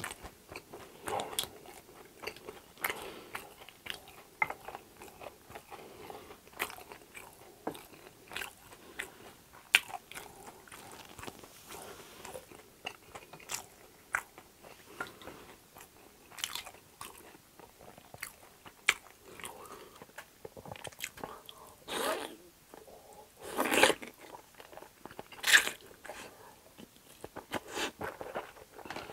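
A person chewing food with the mouth right at the microphone: a steady run of small, sharp wet clicks and smacks. A few louder, longer mouth sounds come after about twenty seconds.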